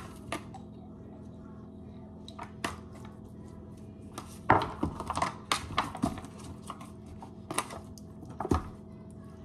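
Hands rubbing seasoning into raw chicken in a disposable aluminium foil pan: scattered crinkles and knocks from the foil tray, busiest about four to six seconds in, over a steady low hum.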